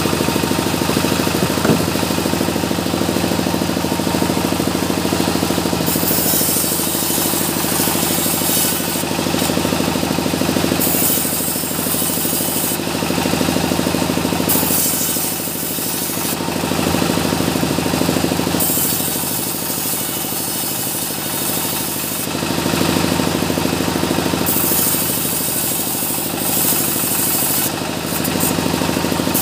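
Sawmill saw running steadily while small mahogany logs are fed through it, with a harsh high hiss rising and falling every couple of seconds as the blade cuts through the wood.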